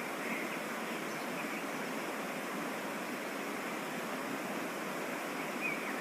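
Waterfall on a mountain stream: a steady rush of falling water, with a few brief higher-pitched blips over it.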